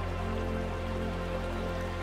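Calm ambient music with long held notes over a steady low drone, mixed with a soft patter of water.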